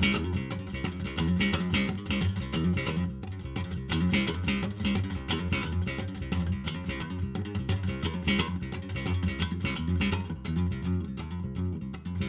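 Guitar music: rapid picked notes over a steady low bass line.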